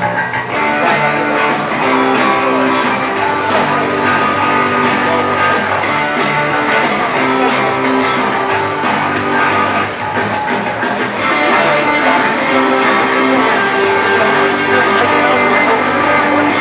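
Background music with strummed guitar in a rock style.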